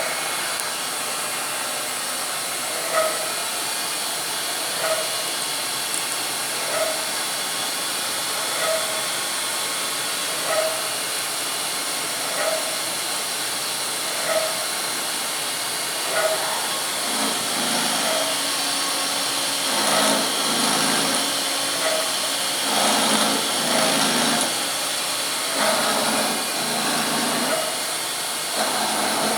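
CNC milling machine running: a steady hiss with a short pitched blip about every two seconds, and from about halfway on a low hum that comes and goes.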